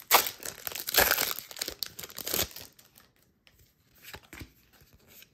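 Foil wrapper of a Pokémon TCG booster pack being torn open and crinkled by hand for about two and a half seconds, then faint rustling and clicks as the pack is handled.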